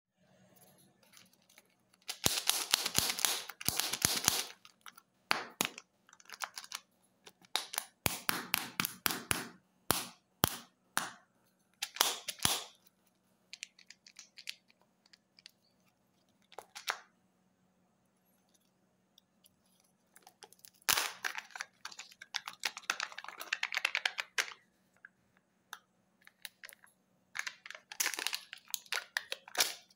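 Crackling and crinkling of Kinder Joy egg packaging being handled and opened: the thin plastic wrapper and shell crackle and click, and the foil seal is peeled off the plastic half. The sound comes in several bursts of rapid crackles and clicks, a few seconds each, with quiet pauses between them.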